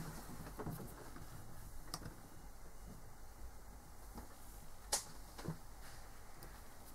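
Faint clicks and taps from fingers handling and pressing an opened smartwatch, with one sharper click about five seconds in.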